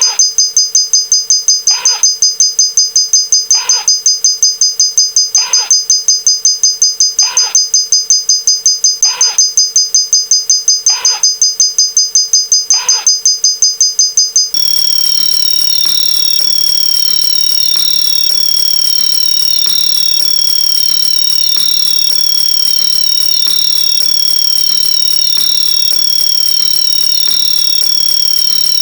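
Electronic alarm sound effects: first a rapid high two-tone beeping, then, about halfway through, an abrupt switch to a steady high tone with a falling chirp repeating about once a second.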